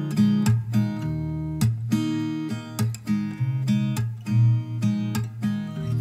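Background music: acoustic guitar with notes plucked and strummed in a steady rhythm.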